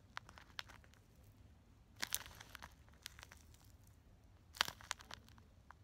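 Faint crinkles and clicks of fingers squeezing and handling a small squishy toy close to the microphone, with a cluster of rustles about two seconds in and a sharper one a little past four and a half seconds.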